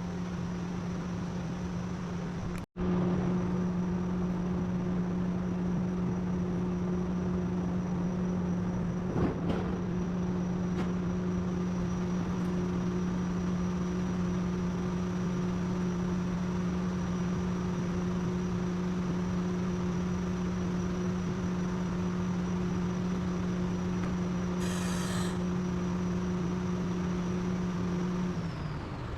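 A small motor running at a steady, even pitch, probably a power tool used in the body repair, with a momentary break about three seconds in; it winds down and stops near the end.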